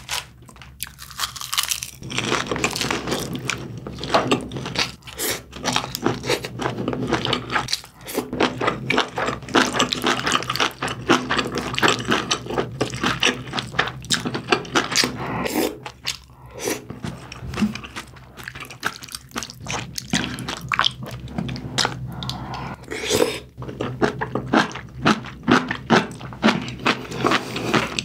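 Close-miked chewing of a person eating braised kimchi and pork belly with rice: dense, irregular crunching and mouth sounds, with light utensil scrapes, and a brief lull about halfway through.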